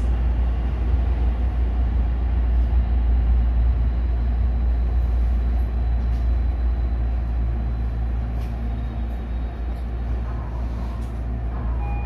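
Tokyo Metro 16000-series subway train pulling out of a station and gathering speed, with a steady low rumble of wheels and running gear heard from the driver's cab.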